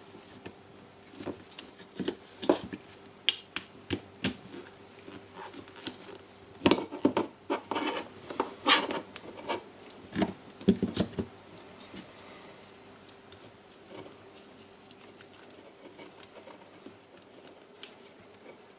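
Plastic housing parts and wiring of an impact wrench being handled and fitted together by hand: scattered clicks, knocks and rubbing, busiest in the middle and quieter near the end, over a faint steady hum.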